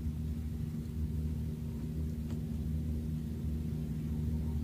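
Small gasoline engine of a fishing boat running at a steady idle: an even low drone that holds one pitch, with a faint click about two seconds in.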